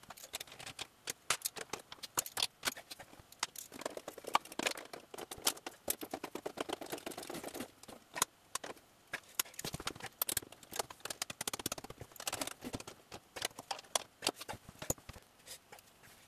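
Irregular clicks and knocks of tools and parts being handled inside a washing machine cabinet during reassembly. A quick run of rapid clicks comes about six seconds in.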